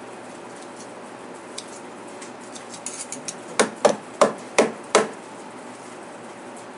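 Scissor blades snipping shut: five sharp clicks in about a second and a half around the middle, after a few lighter ticks.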